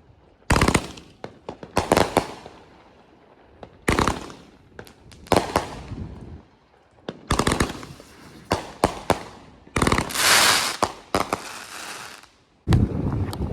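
Consumer fireworks going off: sharp bangs in quick clusters of several within a second, with a denser crackling burst lasting about a second and a half about two-thirds of the way through.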